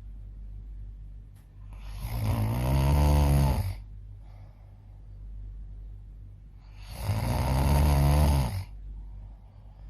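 A person snoring: two long snores about five seconds apart, each lasting about two seconds and rising then falling in pitch, with a low steady hum underneath.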